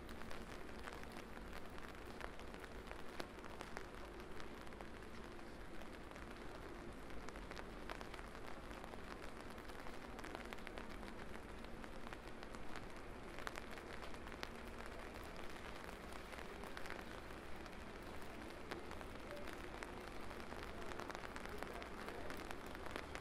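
Steady rain, with many small sharp drop ticks scattered through it.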